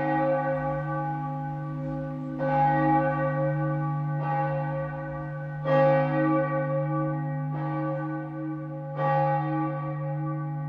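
A large bell tolling, struck about every one and a half to two seconds. Each stroke rings on long over a steady low hum, so that the strokes overlap.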